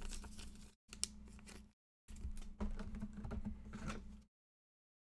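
A trading card being handled and slid into a soft plastic penny sleeve: light plastic crinkling and small clicks, in three short spells over a low steady hum. All of it stops about four seconds in.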